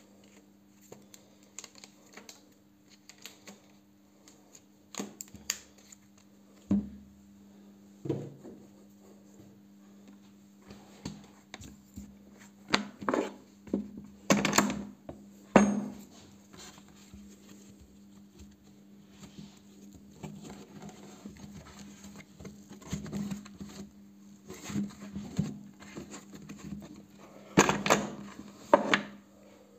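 Hands wrapping a steel bolt in a towel and handling it on a tabletop: scattered knocks, taps and cloth rustling, loudest about halfway through and again near the end, over a steady low hum.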